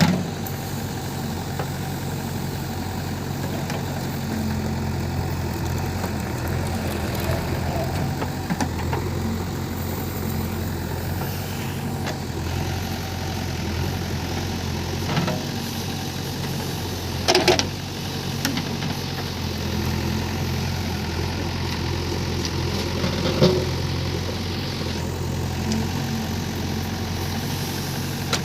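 JCB 3DX backhoe loader's diesel engine running steadily while working, with a few sharp knocks over it, the loudest about 17 seconds in and again about 23 seconds in.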